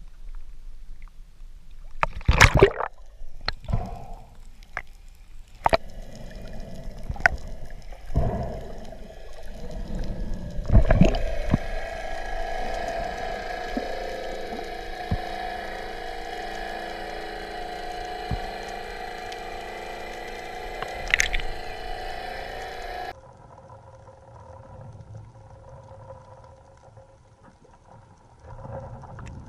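Water noise picked up by a spearfisher's action camera at the surface and under water: several sharp splashes and knocks in the first ten seconds, then a steady drone for about twelve seconds that cuts off suddenly, leaving a quieter underwater hiss.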